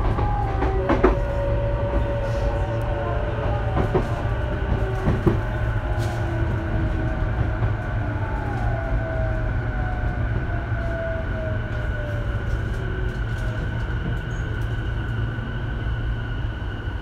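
Sotetsu 12000 series electric train running, heard from inside the passenger car: a steady rumble of wheels on track, with a few sharp rail-joint clicks around the first second. A motor whine slowly falls in pitch through the middle.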